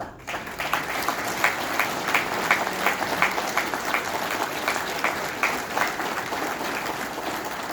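Audience applauding, a steady spread of many hands clapping that starts abruptly and carries on, with some louder single claps standing out.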